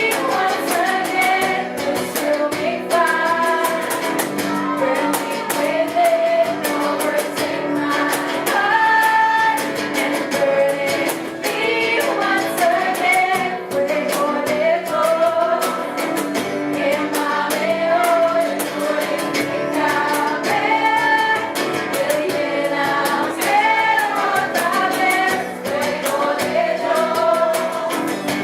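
Music with singing: a sung melody over a band with a steady beat.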